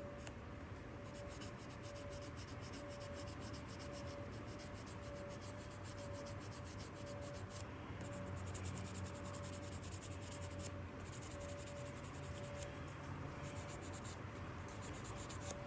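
Micro-mesh sanding pad rubbed by hand over a tobacco pipe stem: fast, continuous scratchy strokes with a few brief pauses. This is the fine sanding that brings the stamped stem logo back up.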